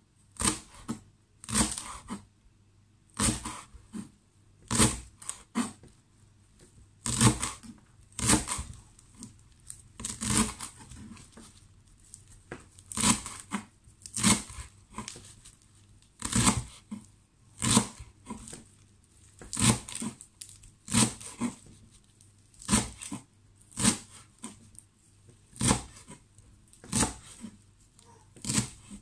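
Kitchen knife chopping celery leaves on a wooden cutting board: sharp chops of the blade against the board, about one to two a second, often in close pairs.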